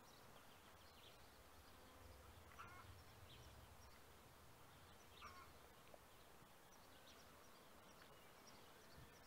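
Near silence, with a few faint short clucks from hens; the clearest two come a little past a quarter of the way in and about halfway.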